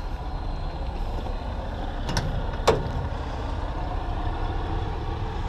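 Heavy diesel engine idling steadily as a low drone, with two sharp clicks a little over two seconds in, about half a second apart, as a side compartment door's latch is opened.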